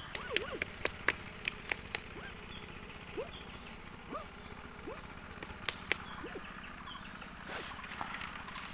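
A string of sharp knocks or clicks, several in the first two seconds and a couple more near six seconds. Under them, short chirping animal calls repeat, over a steady high-pitched insect whine.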